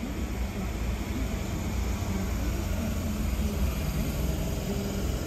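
Sydney Trains K-set double-deck electric train running into the platform and slowing, a steady low rumble that grows a little louder as it draws alongside.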